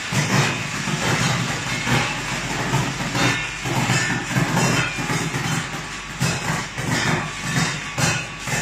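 Raisin colour sorting machine running: a steady low hum with irregular clattering over it.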